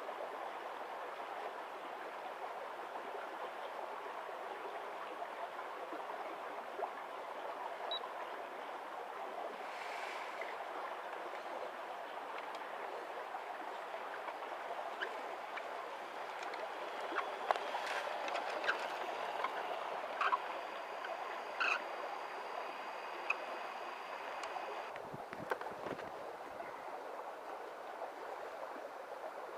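Steady rushing of running water, like a nearby stream. In the middle stretch there are scattered small clicks and crunches and a faint high whine.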